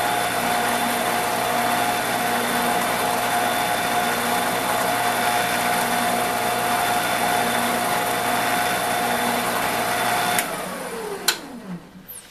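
CNC router spindle motor running at a steady speed with a twist drill bit in its chuck, drilling a shallow centre hole into a UHMW plastic plate. About ten seconds in it is switched off and winds down with a falling whine, with a sharp click as it slows.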